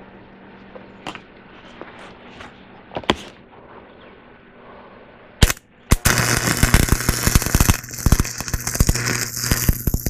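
Stick welding arc: a sharp crack as the electrode is struck about five and a half seconds in, then from six seconds a steady, loud crackling and sputtering as the bead is laid. A few light clicks and clinks come before it.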